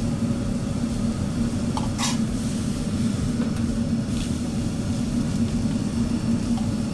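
Restaurant gas wok burner running at full flame under a wok of boiling water: a steady, low rushing noise. A brief, sharper sound cuts through about two seconds in and again about four seconds in.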